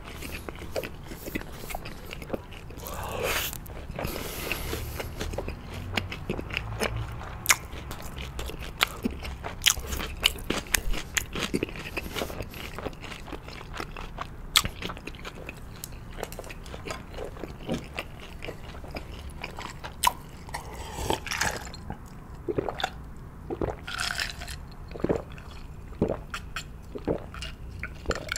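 Close-miked mouth sounds of eating: wet chewing of sticky sauced boneless fried chicken and crisp crunching of pickled radish cubes, with many small sharp bites. Sips from a glass come near the end.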